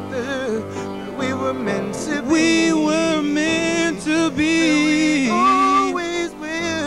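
A male singer singing with long held notes while accompanying himself on piano.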